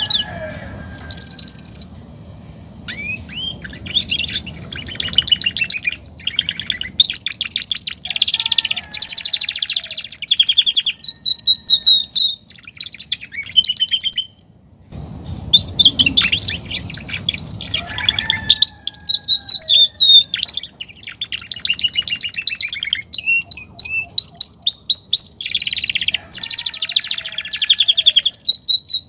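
Saffron finch (canário-da-terra) singing: phrase after phrase of fast trills and rising and falling chirps, with a brief pause about halfway through.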